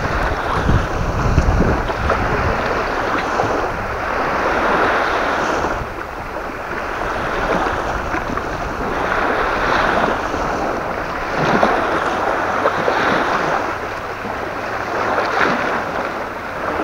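Waves washing against the shore in a strong wind, swelling every couple of seconds, with wind buffeting the microphone as a low rumble that is heaviest in the first two seconds.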